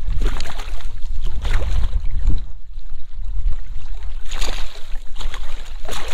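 Water splashing and sloshing in repeated short bursts around a landed striped bass in shallow water, over a heavy low rumble on the microphone.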